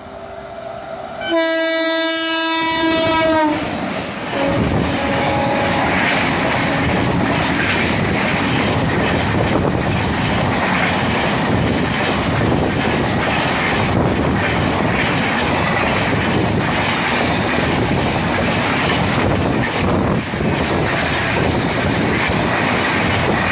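WAP-7 electric locomotive sounding its horn for about two seconds as it comes up, the pitch dipping slightly as it passes. It is followed by the steady rush and clatter of the Falaknuma Express's LHB coaches running past at speed.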